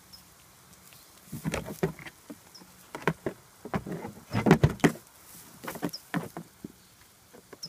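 Irregular clusters of knocks and thumps, the loudest a little past the middle, dying away near the end.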